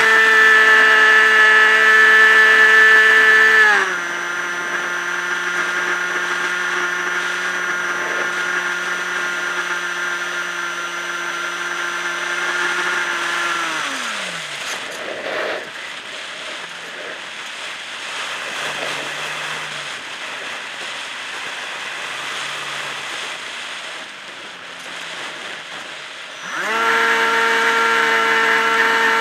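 Electric motor and pusher propeller of a Multiplex EasyStar model plane, heard from an onboard camera: a steady high whine at full throttle that drops in pitch about four seconds in as the throttle is eased, then winds down and stops about fourteen seconds in, leaving rushing air noise as the plane glides. Near the end the motor spins back up to full throttle.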